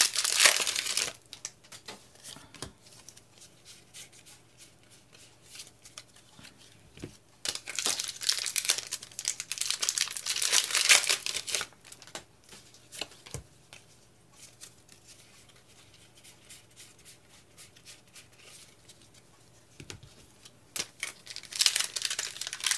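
Foil booster-pack wrappers of Pokémon trading cards being torn and crinkled, in bursts: about the first second, again from about 7 to 12 seconds in, and near the end. In the quieter stretches between come light clicks of cards being flicked through by hand.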